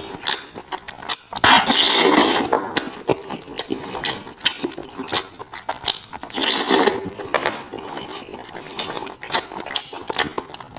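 A person eating chicken close to the microphone: chewing with many small wet clicks and smacks, and two louder noisy bursts of crunching, about a second and a half in and again near six and a half seconds.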